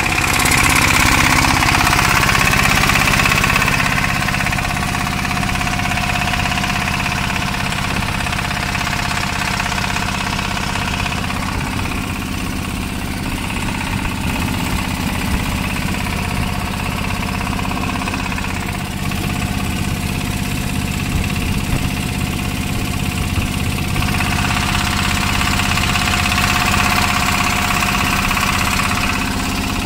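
A fishing boat's engine running steadily.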